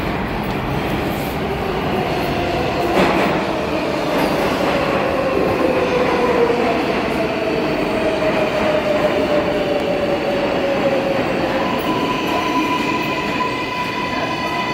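R142A subway train running into the station and slowing along the platform: a loud, steady rumble of wheels on rail, with a tone that falls slowly in pitch as the train brakes and a steadier, higher tone near the end.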